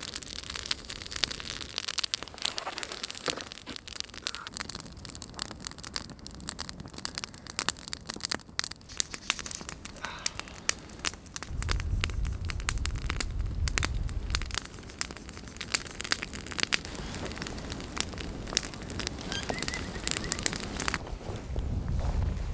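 Campfire of dead branches crackling and popping with many irregular sharp snaps. A low rumble comes in for a few seconds around the middle and again near the end.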